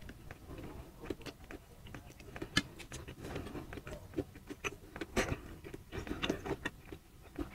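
Close-miked chewing with the mouth closed: soft, irregular wet clicks and smacks from a mouthful of oden fish cake and fried instant noodles.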